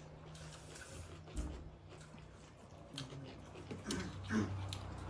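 Quiet eating sounds: fingers mixing rice and curry on a plate, chewing and lip smacks. A short low hum from a voice comes about four seconds in.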